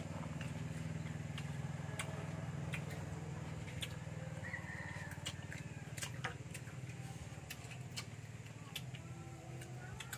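Eating sounds from mango being bitten and chewed, irregular crisp clicks over a steady low hum.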